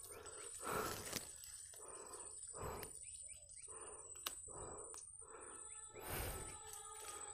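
Faint rustling of gewa mangrove leaves as a hand tears them from a branch, in short repeated swishes with a couple of sharp snaps. A faint steady high tone runs underneath.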